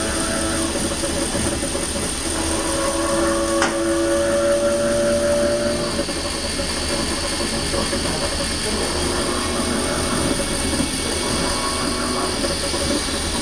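DART electric train's traction motors whining with steady tones over running noise and hiss, the tones fading about six seconds in; a single sharp click about three and a half seconds in. This is the motor noise the uploader calls terrible, on wet rails with low adhesion.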